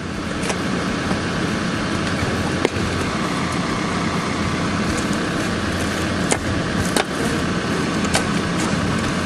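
Steady drone of an engine running, with about six sharp clinks or knocks scattered through it.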